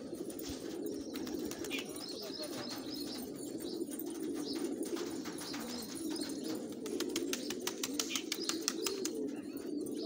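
A flock of domestic fancy pigeons cooing continuously, many birds overlapping. About seven seconds in comes a rapid run of sharp clicks lasting some two seconds.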